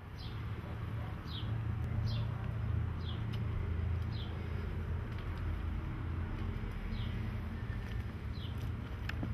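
A small bird calling with short, high chirps that drop in pitch, seven of them about a second apart with a pause midway, over a steady low rumble.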